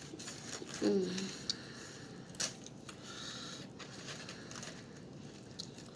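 Quiet eating sounds: scattered light clicks and rustles of a utensil and food container, with a short hum of voice about a second in.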